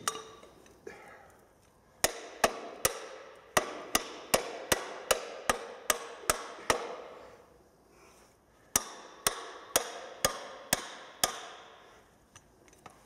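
Hand hammer striking a steel tube assembly: sharp, ringing metal blows at about two and a half a second. About a dozen blows come, then a pause of two seconds, then six more.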